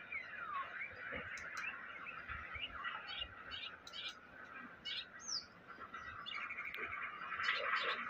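White-rumped shama singing: a varied run of short whistled notes and chirps, with a long falling whistle near the start, over a steady background of bird sound.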